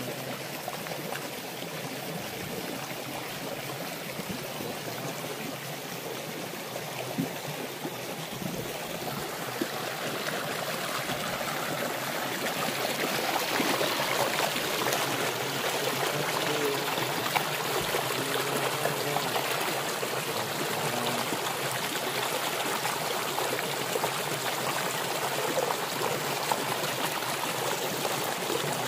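A shallow rocky stream flowing and splashing over boulders, with a small cascade pouring between rocks. The rushing grows louder about ten seconds in and stays steady after that.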